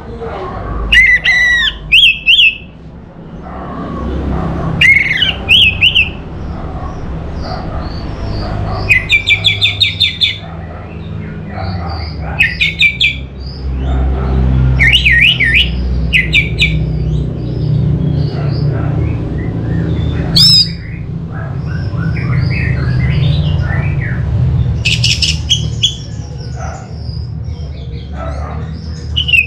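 Orange-headed thrush singing: loud phrases of slurred whistles and fast rattling trills, repeated every few seconds, over a steady low background rumble.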